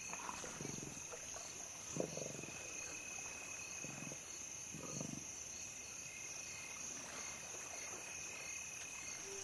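Steady chorus of night crickets, with four short low growls from lions feeding at a kill in the first half.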